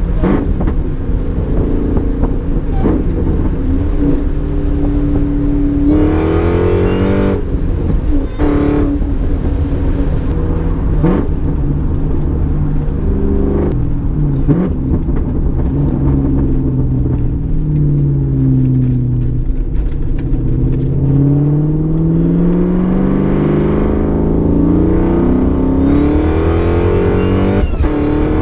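Car engine running and revving, its pitch climbing and dropping several times as the throttle is worked, with one long slow climb in the second half.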